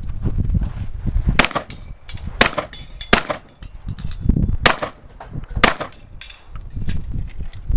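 Five shotgun shots fired about a second apart, over a steady low rumble.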